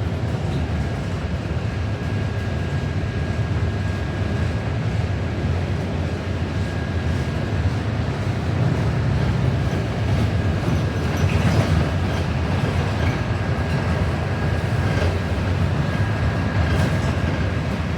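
Inside a moving New Flyer XD40 diesel city bus: a steady low rumble of the engine and road, with scattered rattles and knocks and a faint steady high whine.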